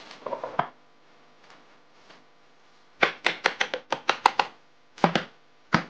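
Small hammer driving small nails into a hardwood board: a quick run of about ten light taps over a second and a half, then three more single strikes near the end. Before that, a few soft knocks as a wooden strip is set in place on the bench.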